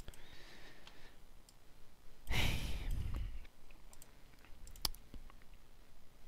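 Several computer mouse clicks, one sharper click near the end, with a heavy breath into the microphone about two and a half seconds in, the loudest sound, and a softer breath near the start.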